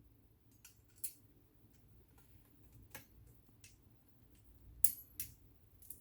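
Faint, scattered clicks and taps of small metal parts being handled as a sewing machine's cover part and its small screw are refitted, with a louder pair of taps near the end.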